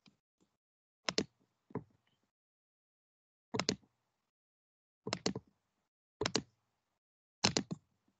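Sharp clicks from a computer being operated, mostly in quick pairs, about six times at intervals of a second or two.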